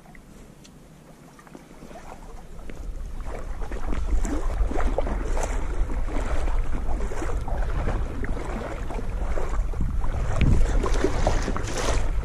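Small splashes, knocks and rustling around a kayak on the water, over a low rumble of wind and handling on the camera's microphone; it grows louder about two seconds in and stays busy and irregular.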